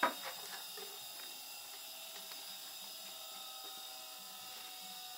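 A sharp click right at the start, then a few lighter clicks and soft handling sounds as denim and pocket fabric are moved about on an industrial sewing machine table, over a steady faint hum; the machine is not stitching.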